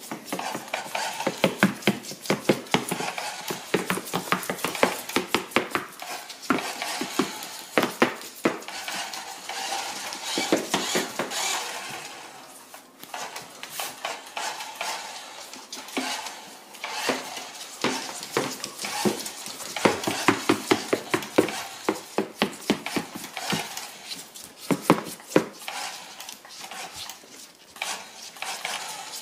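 Dense, irregular clicking, tapping and scraping on a hardwood floor from a tortoise's claws and shell and a small remote-control toy truck moving across the boards. It eases off briefly about thirteen seconds in.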